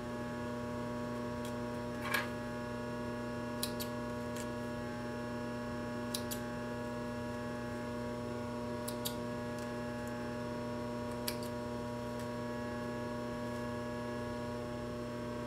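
Steady electrical mains hum, with a few faint clicks every few seconds.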